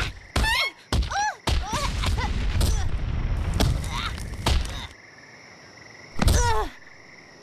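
Cartoon fall: a character gives short yelps while tumbling, with a run of heavy thumps, then a loud thud and a grunt as he lands flat on his face about six seconds in. A steady high chirring of night insects sits underneath in the quieter stretch.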